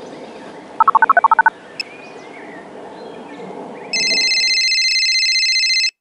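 Phone keypad tones: a quick run of about ten short beeps as a number is dialed, then, about four seconds in, a telephone ringing loudly for about two seconds. Faint birdsong underneath.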